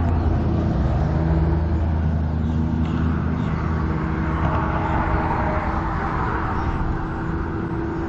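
An engine running steadily with a low hum, louder in the first half and easing off about halfway through.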